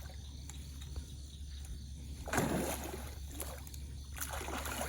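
Water splashing as a hooked alligator gar thrashes at the surface, in two surges, about two seconds in and again near the end, over a steady low rumble of wind on the microphone.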